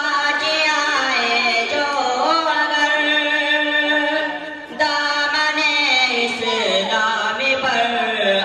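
A boy singing an Urdu nazm (devotional poem) solo, with no instruments, into a microphone. He draws out long melodic lines that slide between notes, with a short breath about halfway through.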